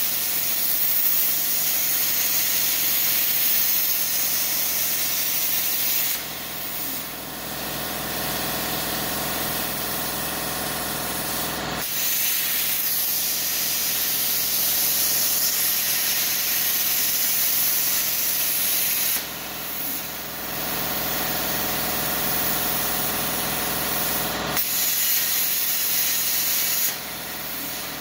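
ArcDroid CNC plasma cutter's IPT-60 torch cutting a steel handsaw blade: a loud, steady hiss of the plasma arc and its compressed air. It dips briefly in level three times.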